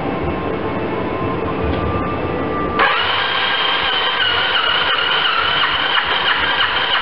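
Single-cylinder diesel engine of a Kawasaki KL650 HDT military motorcycle running with a low, rhythmic beat. About three seconds in the sound changes abruptly to a higher-pitched, whining run.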